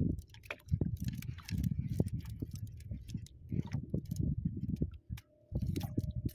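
Irregular clicks and light knocks from a fishing handline being worked on a plastic hand spool held close to the microphone, over an uneven low rumble.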